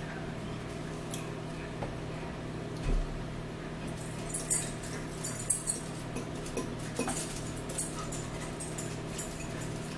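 Eating at a table: scattered sharp clicks of metal forks against bowls and plates, loudest in a cluster about halfway through, with a dull thump about three seconds in, over a steady low hum.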